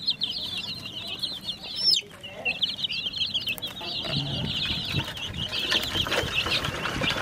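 A flock of young chicks peeping continuously in rapid, high cheeps. In the second half, water is poured from a plastic jug into a plastic-bottle drinker among them.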